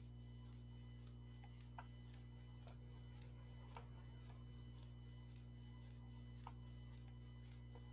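Near silence: a steady low electrical hum with faint, evenly spaced ticking and a few soft clicks.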